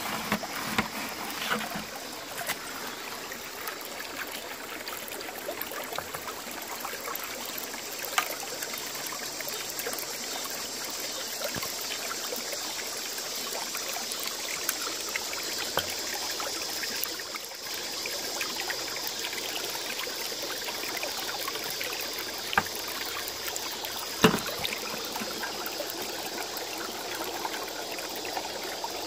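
Creek water rushing steadily through an aluminium gold-prospecting sluice box while concentrates are run through it, with a few sharp clicks now and then.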